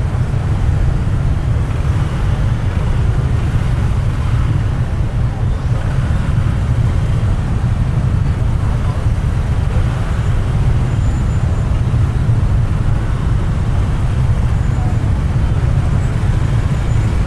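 Road traffic crawling in a jam: a steady, loud low rumble of many engines.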